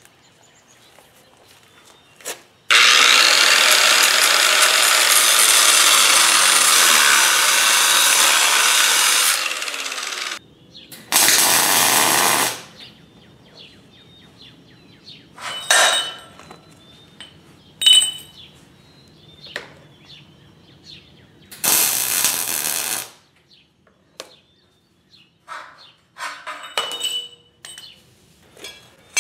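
Angle grinder cutting through tack welds on a steel table frame: one long cut of about seven seconds that winds down, then two short bursts later on. Between the cuts come a few sharp metal clinks and knocks.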